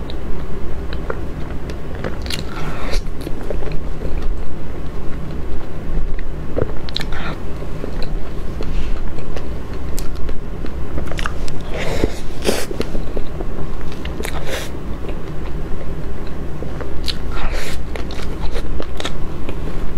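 Close-miked eating of soft cream cake: wet chewing and mouth sounds, with scattered short clicks and a few brief louder smacks, over a steady low background hum.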